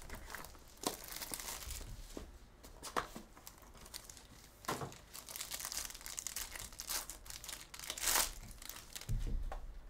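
Trading-card box opened by hand and its foil-wrapped pack torn open: steady crinkling of the wrapper with several sharp rips, the loudest near the end, then a low thump.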